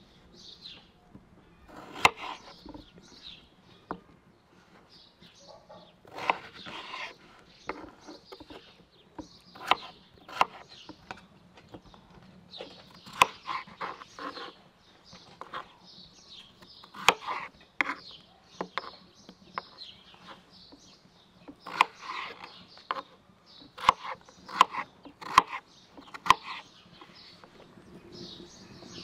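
Knife cutting peeled potatoes into chunks on a wooden cutting board: irregular sharp knocks of the blade striking the board, with crisp slicing sounds between them. Birds chirp in the background.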